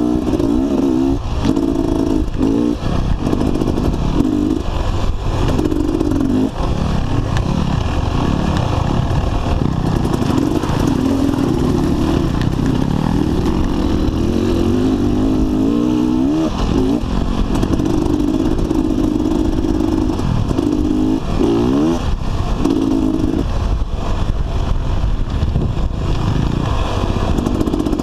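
Dirt bike engine being ridden off-road: the throttle opens and closes over and over, the engine note cutting in and out with short rising revs, over a continuous rough rumble.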